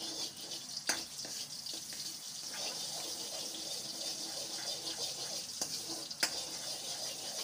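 Steady hiss of oil heating in a metal kadhai over a lit gas burner, with two sharp clicks of a metal spoon against the pan, about a second in and again near the end.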